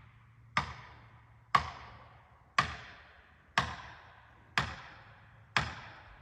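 Felling wedge being driven into a tree's saw cut with a hammer: six sharp, ringing strikes about a second apart. The wedge is stubborn and not going into the tree.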